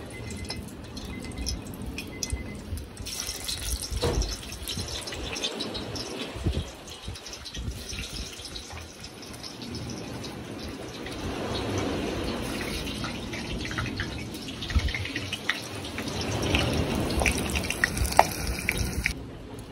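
Hot oil sizzling and crackling in a cast-iron pot over a wood fire, with a piece of lime frying in it near the end. It is a steady hiss of fine pops that grows busier about three seconds in.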